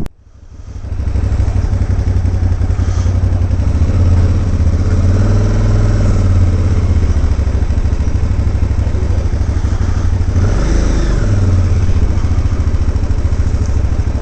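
Motorcycle engine running while riding, its pitch rising and falling about five seconds in and again near eleven seconds as the revs change. The sound drops out briefly at the very start and comes back within about a second.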